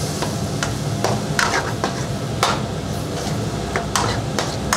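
Silicone spatula stirring and scraping chunks of pork trotter through a thick spicy sauce in a hot frying pan, in irregular strokes, with a light sizzle. A steady low hum runs underneath.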